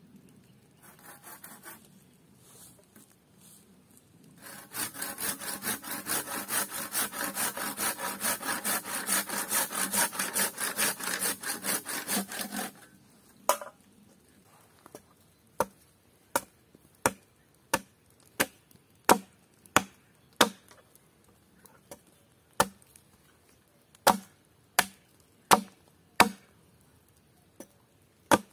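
A hand saw cutting through a green wooden pole with rapid back-and-forth rasping strokes for about eight seconds, then a hatchet chopping a wooden stake in sharp single blows, roughly one a second.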